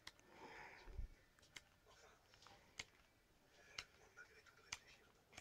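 Near silence, with faint soft rustles of paper pages being turned and a few small scattered clicks from handling the book.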